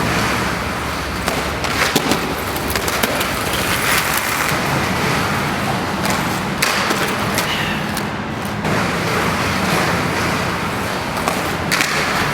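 Inline skate wheels rolling over rough pavement with a steady rumble, broken by a few sharp clicks and knocks.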